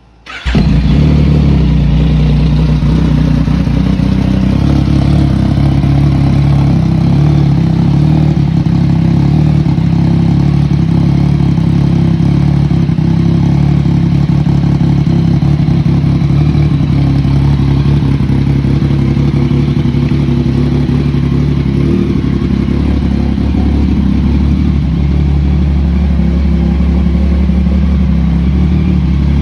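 Yamaha FZ-09 (MT-09) 847 cc inline-three motorcycle engine with a Two Brothers slip-on exhaust starting up about half a second in, then running steadily and loudly through the exhaust.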